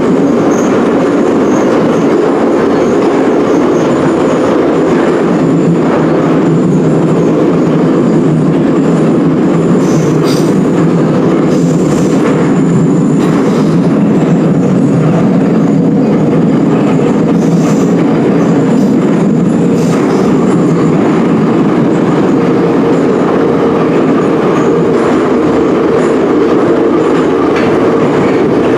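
Ezh3/Em-508T metro train running at speed through a tunnel, a steady loud rumble of wheels on rail. A few faint high wheel squeals come through midway.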